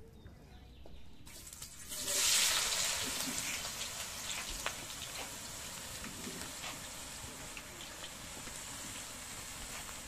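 Food sizzling in a hot sac pan: a loud hiss starts suddenly about two seconds in, then settles to a steady sizzle with scattered crackles.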